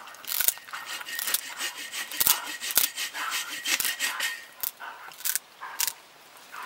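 Golden retriever gnawing and tugging on a birch stick: teeth scraping and crunching on the wood in irregular bursts, with sharp clicks.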